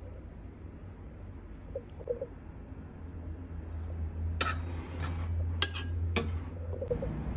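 A metal spoon clinking and scraping against a ceramic bowl of stir-fry: a few sharp clinks in the second half, over a low steady hum.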